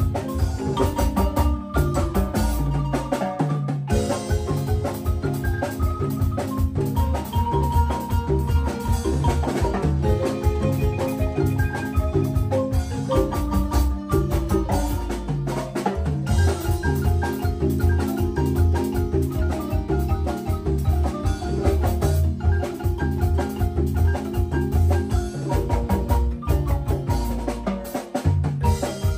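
Marimba ensemble: several players on two large wooden marimbas playing a tune with many quick mallet notes over deep bass notes, backed by a drum kit.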